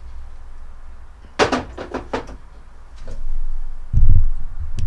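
A quick cluster of sharp knocks and clunks as a motorcycle fork tube and metal parts are handled on a wooden workbench, followed by a loud low rumble of handling noise close to the microphone near the end.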